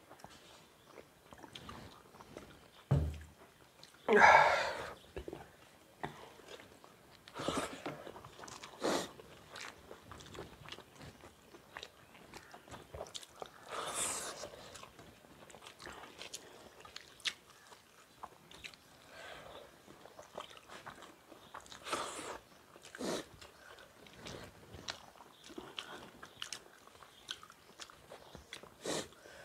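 Eating sounds from two people eating rice and egg bhurji by hand from steel plates: chewing, and fingers mixing food on the plates, with scattered clicks. There is a low thump about three seconds in, and the loudest noisy burst comes just after it.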